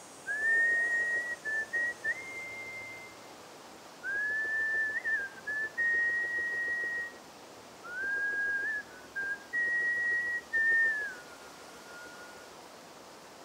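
A person whistling a slow tune in three long phrases of held notes joined by small slides, the last phrase stepping down and fading out.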